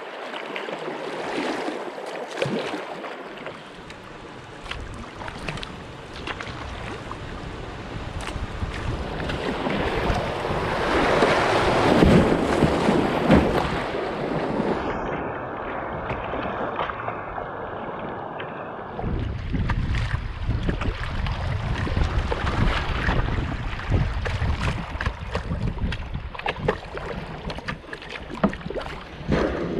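Water splashing and rushing around a kayak as it is paddled down a shallow river, with repeated paddle splashes. The sound swells to its loudest a little before halfway, turns muffled for a few seconds just past the middle, then a low wind rumble buffets the bow-mounted GoPro's microphone.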